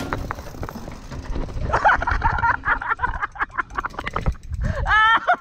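Background music fading out, then indistinct voices of people talking, mixed with scattered clicks and knocks.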